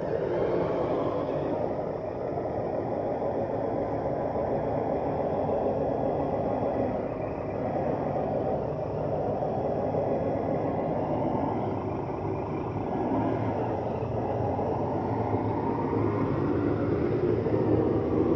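HG-P408 RC Humvee running as it pushes snow with its front plow: a steady vehicle noise that swells and eases a little as it drives.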